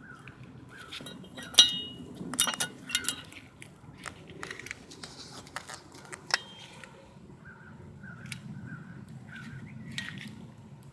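Metal clinks and clicks of brake parts being handled, pads and shims knocking together, a few of them ringing briefly.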